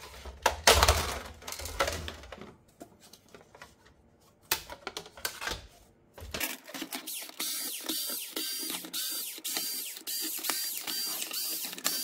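Plastic clicks and scraping as the snap-fit top cover of an iRobot Roomba 539 robot vacuum is pried off with a screwdriver, followed from about halfway by an even run of light clicks, about two or three a second.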